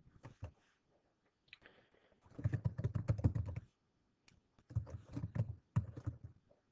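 Typing on a computer keyboard: two runs of quick keystrokes, the first about two seconds in and the second a second or so later, each lasting over a second.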